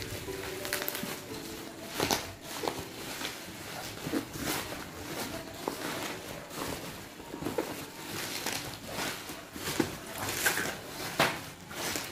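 Thin black plastic mailer bag crinkling and rustling as it is torn and pulled off a cardboard box, with many irregular sharp crackles.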